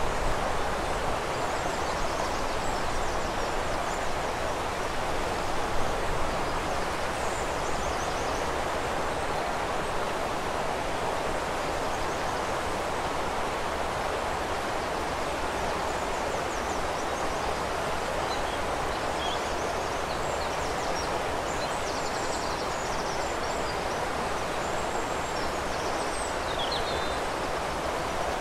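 Steady rush of flowing river water, with faint bird chirps and short trills now and then, more of them in the second half.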